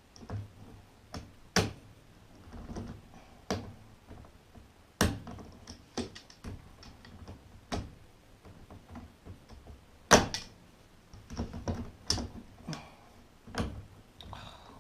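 Irregular knocks and clicks as parts of a Kenmore 70 Series washer are pressed and clipped back into place by hand, with the loudest knock about ten seconds in.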